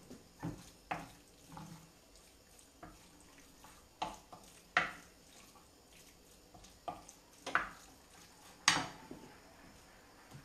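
Wooden spoon knocking and scraping against a stainless steel frying pan as pasta is stirred: about ten sharp, irregular knocks, the loudest about three quarters of the way through.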